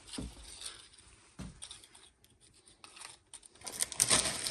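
Light rustling, scratching and small clicks of tortilla chips being handled and laid onto peanut butter and jelly sandwiches on paper plates, with a louder crinkly rustle near the end.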